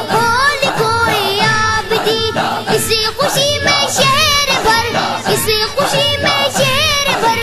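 Young boys' voices singing a devotional naat with a wavering, ornamented melody over a steady musical backing.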